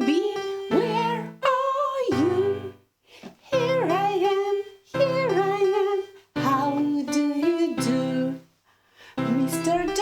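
Music: a song with plucked acoustic guitar under a sung melody, in phrases broken by short pauses.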